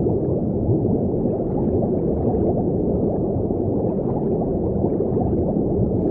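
Underwater ambience: a steady, muffled, low rush of water with no clear high sounds.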